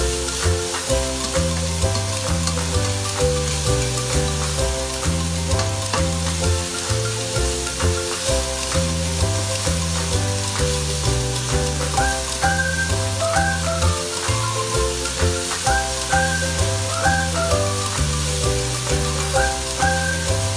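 Chopped food sizzling in a hot nonstick wok as a spatula stirs and scrapes it around, under background music with a steady bass beat; a higher melody comes in a little past halfway.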